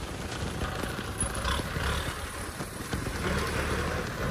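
Kubota M6040SU tractor's diesel engine running steadily as the tractor works the field.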